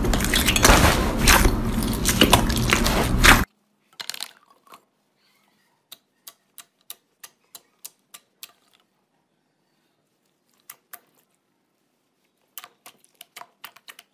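Hands squishing and kneading slime mixed with foam beads: a dense, crackly squelching that cuts off about three and a half seconds in. Then come sparse, quiet, sharp clicks in short runs as fingers poke and press a fluffy slime.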